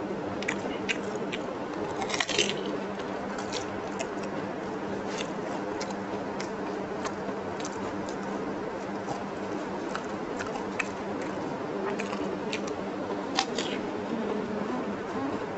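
Eating sounds: crisp fuchka (pani puri) shells filled with sour tamarind water crunching and squishing as they are bitten and chewed, with scattered small crunches and clicks and a louder crunch about two seconds in, over a steady low hum.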